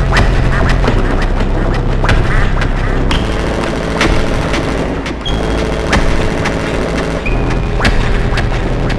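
Dark electronic noise music from a modular synthesizer: a dense, distorted texture over steady low bass drones, punctuated by sharp noisy hits roughly every second or two and a few brief high blips.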